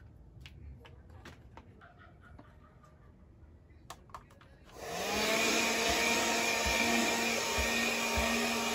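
A handheld vacuum cleaner switches on about five seconds in, its motor rising quickly to a steady whine over a loud rush of air. Before that there are faint clicks and knocks of small objects being handled and set down.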